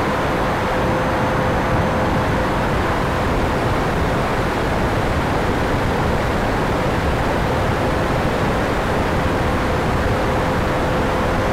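E-flite Viper's 70 mm electric ducted fan running steadily in flight, heard from a camera mounted on the airframe: an even rush of fan and airflow with a thin steady whine running through it.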